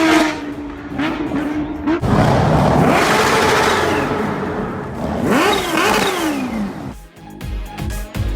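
Supercharged Kawasaki Ninja H2R inline-four engine running at a steady note, then surging loudly and revving up and down. Music starts near the end.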